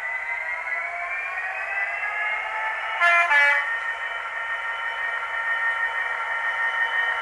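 Sound-decoder recording of a Class 66 diesel locomotive played through a model locomotive's small speaker: the engine note rises as it powers up, a two-tone horn sounds two short notes about three seconds in, then the engine runs on steadily.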